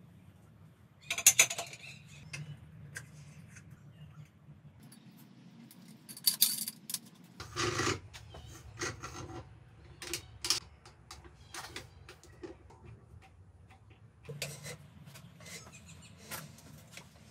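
Scattered metallic clinks and knocks of metal tools and parts being handled during a motorcycle tyre change, the loudest about a second in, with smaller ones through the rest over a low steady hum.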